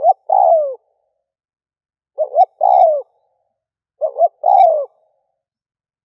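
A decoy spotted dove cooing three times, about two seconds apart. Each call is a quick double note followed by a longer, falling coo.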